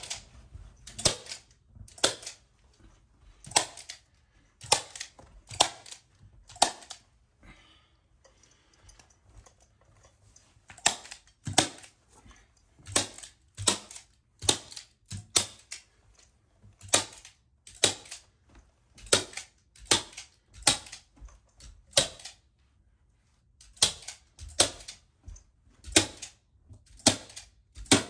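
Stapler driving staples into new carpet pad, one sharp snap per staple, about thirty in quick succession at one to two a second, with a pause of a few seconds about a third of the way in.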